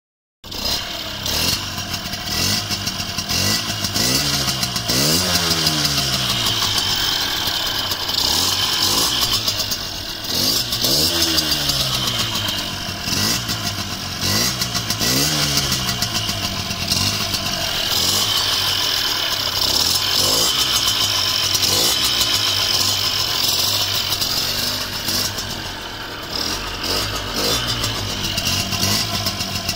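Yamaha DT50MX 50cc two-stroke single-cylinder engine, tuned and fitted with a Gianelli exhaust, running. The throttle is blipped several times between about 4 and 16 seconds, the pitch rising and falling with each rev, and it runs more steadily after that.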